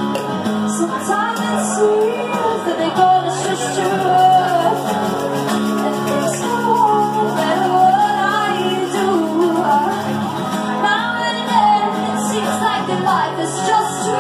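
A woman singing a held, flowing melody live into a microphone over acoustic guitar accompaniment.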